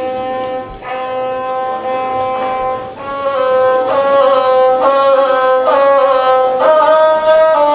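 Gusle, the one-string bowed Balkan folk fiddle, playing its instrumental opening: a held, buzzing note at first, then from about three seconds in a louder run of notes stepping up and down.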